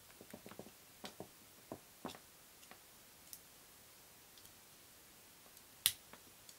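Faint clicks and taps of brass plug pins being pressed back into the plastic body of a UK three-pin plug, with one sharper snap near the end as a pin seats.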